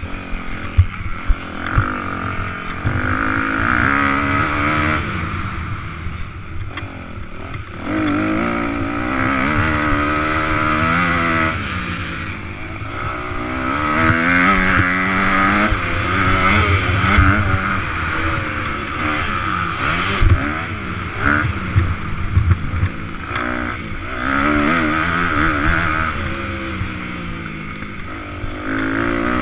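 Motocross dirt bike engine revving hard, its pitch climbing and dropping again every few seconds as the rider accelerates, shifts and backs off around the track, with rough low thumps underneath.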